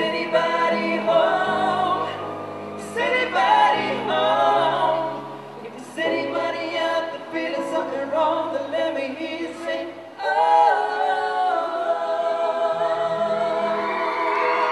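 Male pop vocal trio singing in harmony over keyboard accompaniment, with long held notes.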